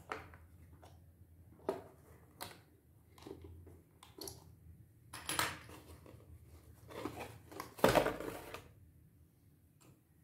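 A cardboard packaging insert handled by hands, with scattered clicks, scrapes and rustles as the fasteners on its back are worked loose. The loudest is a burst of scraping and rustling about eight seconds in.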